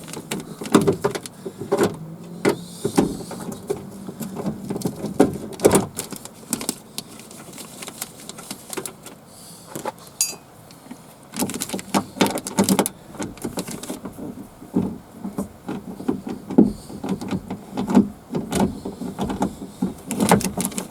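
Ratchet wrench clicking and metal tools clattering as the bolts of a car door's window-regulator bracket are undone. The clicks come in irregular clusters with short pauses between them.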